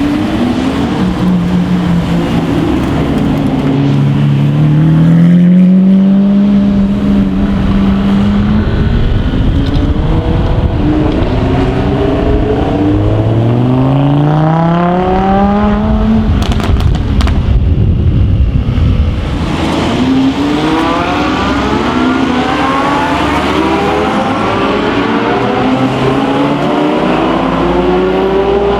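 Lamborghini supercar engines accelerating hard, their pitch climbing in several rising sweeps, with a short burst of exhaust crackles about two-thirds of the way through.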